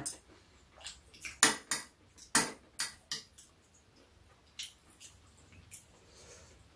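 Metal spoons and chopsticks clinking against bowls and dishes while eating: a scatter of short, sharp clinks, busiest in the first three seconds, then sparser.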